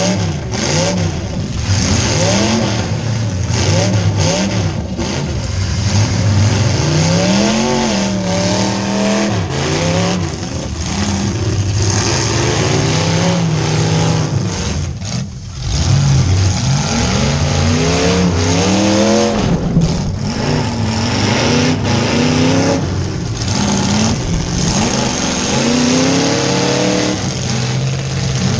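Demolition derby car's V8 engine heard from inside the cab, revving up and falling back over and over as the car accelerates and backs off, with a brief drop about halfway through.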